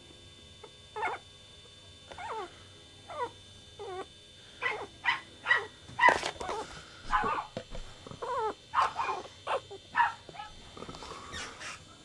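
Young puppies making short, high-pitched yelps and whimpers. There are a few at first, then a quick run of them from about four seconds in, with a longer whine near the end.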